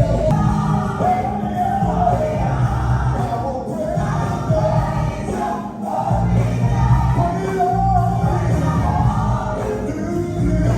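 Live gospel band with group singing: vocal harmonies over bass, drums and keys in a steady groove.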